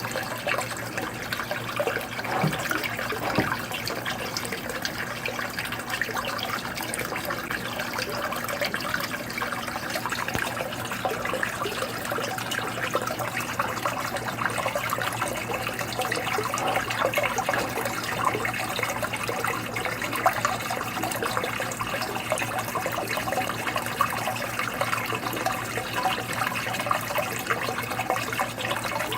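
Aquarium water trickling steadily, with a low steady hum beneath it.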